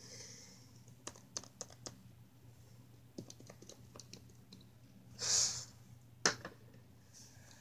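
Light scattered clicks and taps of small plastic toys being handled and set down, with a brief rustle about five seconds in and a sharper click just after it.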